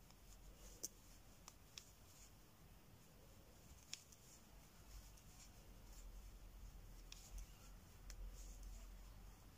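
Faint, quiet handling sounds of Tunisian crochet: a crochet hook and yarn working stitches, with a handful of small sharp clicks scattered through it over a low steady hum.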